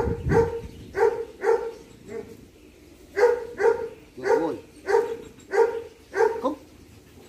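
A dog barking repeatedly, about two barks a second, with a brief pause partway through.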